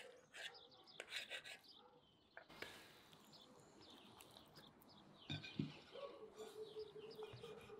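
A knife and a wooden spatula clicking and scraping against a large iron pan as a pan-cooked egg dish is cut and a slice is lifted out, with a couple of soft knocks about five seconds in. Birds chirp faintly in the background, and a faint held tone runs through the last two seconds.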